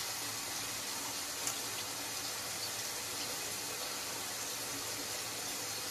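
A water tap running steadily into a sink, left on to raise the humidity in the room.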